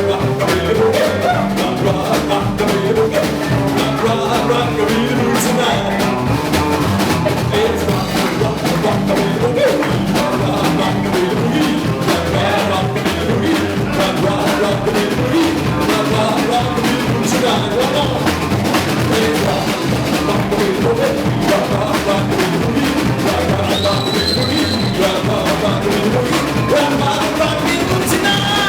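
Live band playing dance music, the drum kit keeping a steady beat.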